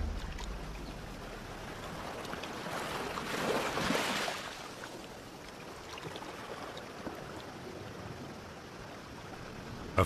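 Sea water washing against the shore, with one wave surging up and falling back about three to four seconds in.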